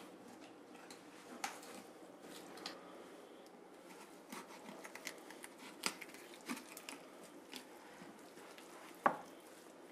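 Faint, scattered taps and clicks of a knife and hands working a raw turkey on a wooden butcher-block table while the bird is being boned out. One sharper knock comes about nine seconds in.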